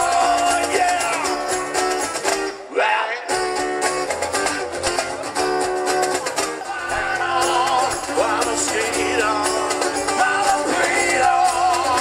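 Live acoustic trio playing: strummed acoustic guitar, upright bass and cajon with cymbal. The music breaks off for a moment about three seconds in, then carries on.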